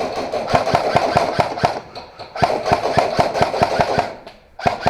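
Airsoft rifle firing in rapid bursts, about six or seven shots a second: one burst of about a second, a short pause, then a longer burst of about a second and a half.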